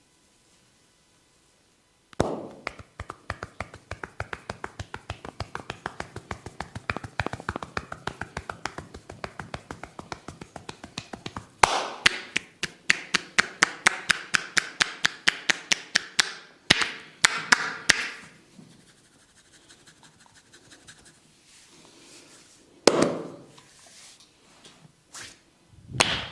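Barber's hands tapping rapidly and rhythmically on a head during a head massage, about six or seven strikes a second, getting louder about halfway through before stopping. Two single louder slaps follow near the end.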